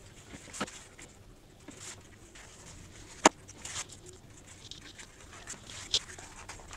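Thin layers of freshly cooked flatbread being peeled apart by hand: soft papery rustling with a few light clicks, the sharpest a single click about three seconds in.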